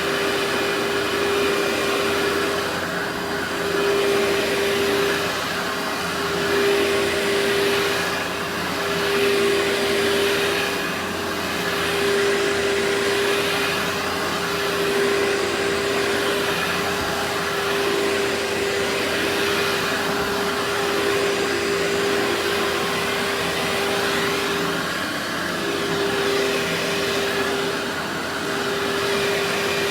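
Workhorse vacuum cleaner running continuously: a dense rushing noise under a steady motor hum, swelling and dipping in loudness every two to three seconds.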